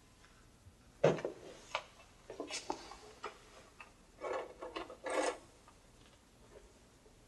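Handling noises: a sharp knock about a second in, then a string of short clicks, taps and rubbing that stops a little after five seconds in.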